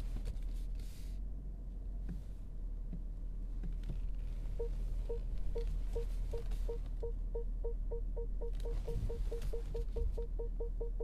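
Car parking-sensor warning beeps: short beeps of one pitch that begin about four and a half seconds in and come faster and faster as the car reverses closer to the wall behind it. Under them is a steady low hum.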